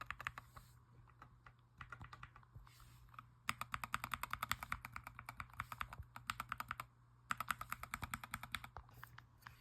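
Fast typing on a mechanical keyboard: quick runs of key clicks, about eight to ten a second, broken by short pauses, over a low steady hum.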